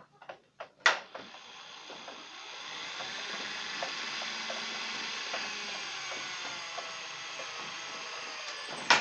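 Power drill running as it bores through a sheet-metal rain gutter: a steady motor whine with the bit grinding in the metal. It starts with a sharp click about a second in and stops with another click near the end.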